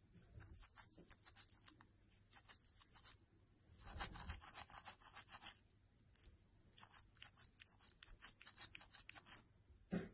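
Toothbrush bristles scrubbing a German Shepherd's teeth in quick back-and-forth strokes, in several short spells with brief pauses between them.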